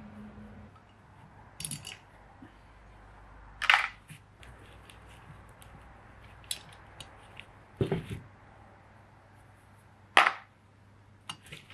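Sharp clicks and knocks of metal carburettor parts and hand tools being handled on a workbench while a Dellorto DHLA carburettor is stripped. There are a handful of separate knocks, the loudest about four, eight and ten seconds in, the last as the aluminium carburettor body is set down on the bench.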